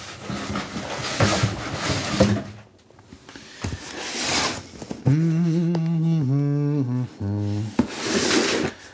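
A taped cardboard shipping box being handled and opened, with scraping and rustling of the cardboard and tape. In the second half a man hums a few low notes, stepping down in pitch, for about two and a half seconds.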